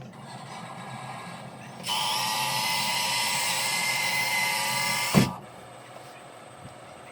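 Electric motor and gearbox of an RC model construction vehicle whining steadily for about three seconds, starting about two seconds in and cutting off with a sharp knock.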